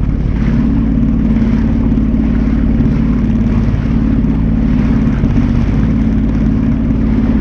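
Jet ski engine running at low, no-wake speed: a steady, loud drone with no revving.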